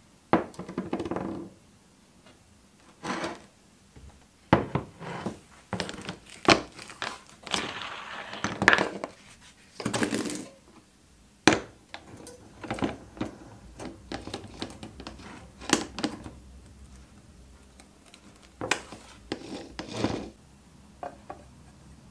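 Irregular knocks, clinks and short scrapes of metal tools being handled on a workbench, as a knotted wire cup brush is set down and screwed onto an angle grinder's spindle. The grinder itself is not running.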